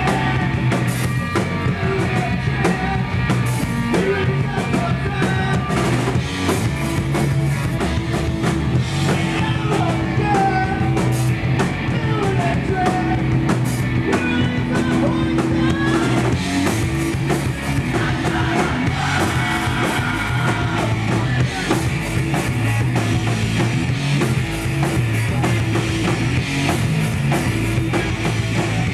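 Live rock band playing a song: electric guitars, drum kit and keyboard, heard continuously and loud, with a singer's voice over the band in the middle part.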